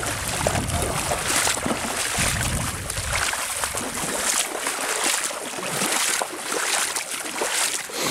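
Rubber boots of chest waders splashing through shallow lake water at the shore, in repeated splashes about every second. A low rumble runs under the first three seconds.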